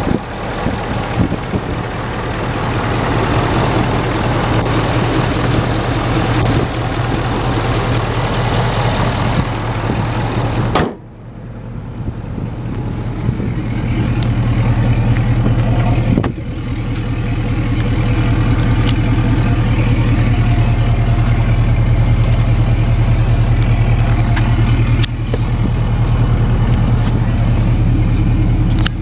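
2016 Ford F-250's 6.7-litre Power Stroke V8 turbo-diesel running with the hood open. About eleven seconds in the sound cuts suddenly, and the engine is then heard duller, as from inside the cab, as a steady low drone.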